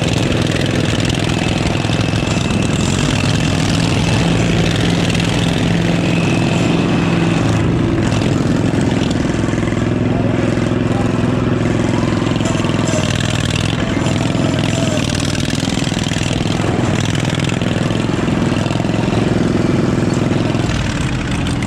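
Derby lawn mower's engine running loud and steady through short upright exhaust stacks, heard from the driver's seat.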